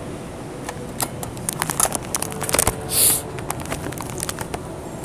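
Handling noise from a handheld camera's microphone: irregular clicks and taps from fingers on the body, with a short rustling scrape about three seconds in.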